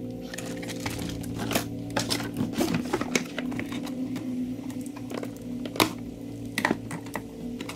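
Cardboard packaging being handled: a string of scattered rustles, scrapes and light knocks as an RC truck is lifted from its box and the box's cardboard insert is pulled and folded.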